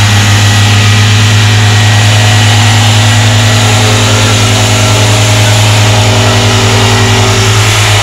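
Vibratory plate compactor running loud and steady, its small engine driving the plate, which pounds the loose, muddy road base with a rapid, even pulsing hum.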